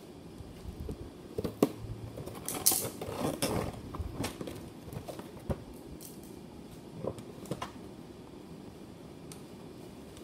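Toy packaging being handled and opened by hand: scattered clicks and knocks, with a louder stretch of scratchy rustling and scraping about two and a half seconds in.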